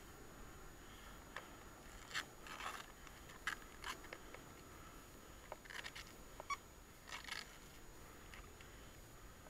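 Faint, scattered scrapes, rustles and clicks of movement and handling close to the microphone: about half a dozen short bursts over a quiet background hiss.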